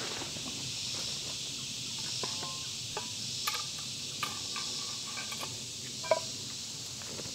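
Insects buzzing steadily in summer woodland, with scattered light knocks and clinks of camp cooking gear being handled and packed. The loudest is a short ringing clink about six seconds in.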